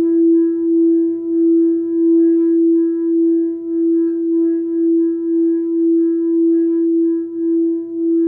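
Quartz crystal singing bowl sustaining one steady, unbroken note with fainter overtones above it, its volume swelling and fading in a regular pulsing waver.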